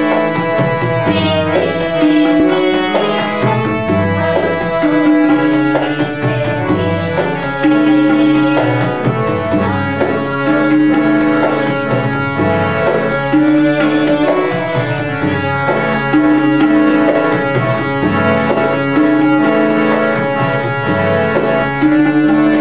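Harmonium playing a melody over a steady tabla rhythm.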